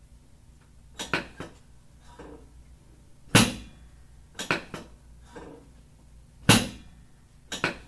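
Chiropractic drop table (Thompson technique) working: a couple of light clicks, then a loud sharp clack as a drop section gives way under the thrust. This happens twice, about three seconds apart. The table is noisy but very gentle.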